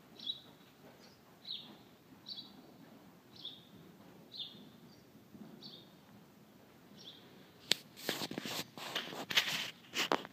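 A small bird chirping, short high falling chirps about once a second. From about three-quarters of the way in, louder rustling and clicks take over.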